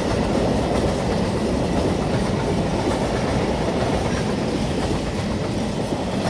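Freight train wagons rolling past: a steady rumble of steel wheels on the rails, first under high-sided open goods wagons, then under flat stake wagons near the end.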